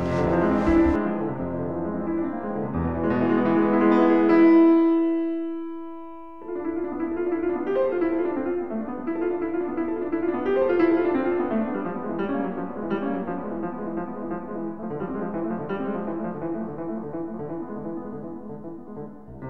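Piano music: a chord held and left to ring out about four to six seconds in, then a steady run of notes resumes.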